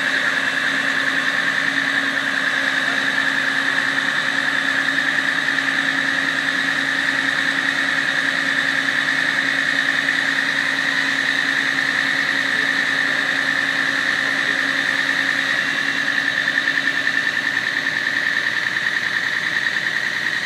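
Volkan aerial ladder fire truck's engine running steadily while its ladder is worked, with a steady high whine over the engine note. A low hum in the mix stops about eighteen seconds in.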